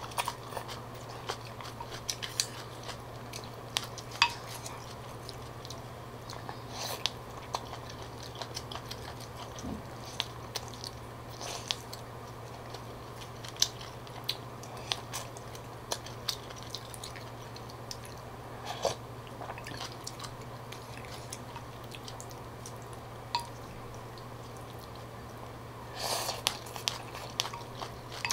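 Close-up eating sounds of a person eating beef pho: chewing, small mouth smacks and slurps of noodles, with chopsticks and a wooden spoon clicking against a ceramic bowl. A steady low hum runs underneath.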